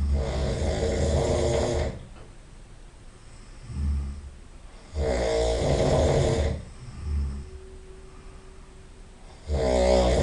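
A person snoring heavily in sleep: three long, loud snores about four and a half seconds apart. Each gap holds a shorter, softer breath sound.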